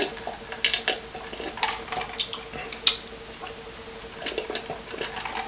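Close-up mukbang eating sounds from a saucy seafood boil: irregular wet smacks and squishes mixed with short sharp clicks and crackles of shell being handled, the loudest crack about three seconds in.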